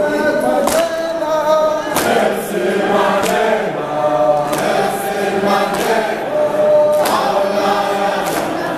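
A group of voices singing a chant-like song together, with hand claps every second or two.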